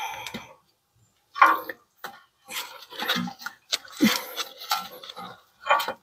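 Hands working a brake pad wear sensor wire into its plastic retaining clips: a run of short clicks and rattles, about five separate bursts.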